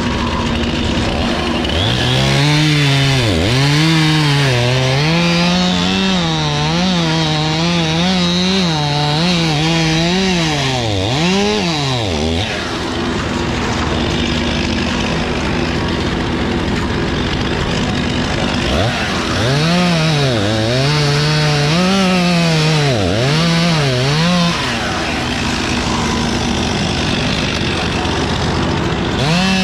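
Two-stroke chainsaw cutting walnut limbs. The engine speed rises and dips over and over in two long spells of cutting, and in between it runs steadier for several seconds.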